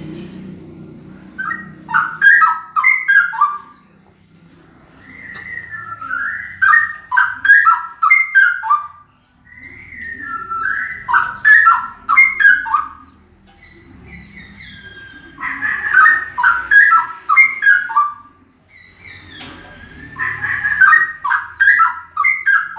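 Male straw-headed bulbul (cucak rowo) singing very loudly: five rich, bubbling warbled song phrases of two to three seconds each, separated by short pauses.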